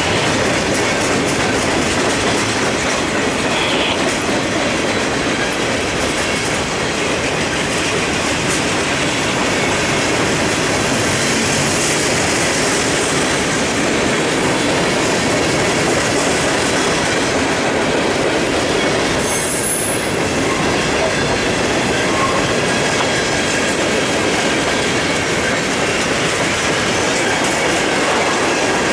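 Loaded freight cars (covered hoppers, boxcars, tank cars) rolling past close by: a steady din of steel wheels on rail, with clickety-clack as the trucks cross the rail joints.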